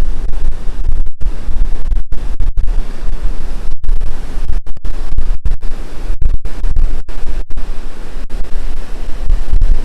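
Strong wind buffeting the microphone: a loud, ragged rumble that keeps cutting out for split seconds, with surf washing underneath.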